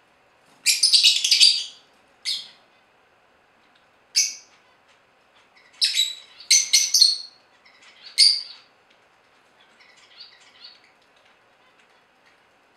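Black-masked lovebirds (yellow-collared lovebirds) calling in loud, harsh, shrill bursts of chattering while a pair mates. The longest burst comes about a second in, a dense run around six to seven seconds, and faint chatter near the end.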